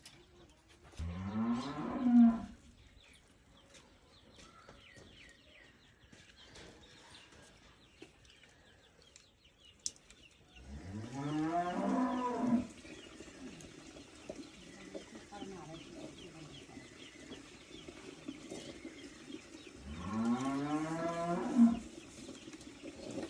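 A cow mooing three times, about ten seconds apart, each a long low call that rises in pitch.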